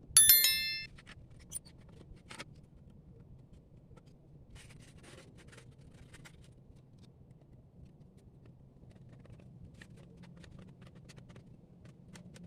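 A sharp metallic clink right at the start that rings for under a second, then faint scattered clicks and light scratching from metal parts being handled, over a low steady hum.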